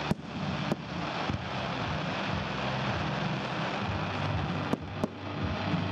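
Aerial firework shells bursting with sharp bangs: three in the first second and a half and two more close together about a second from the end. A steady hiss runs under them, and low music notes underneath.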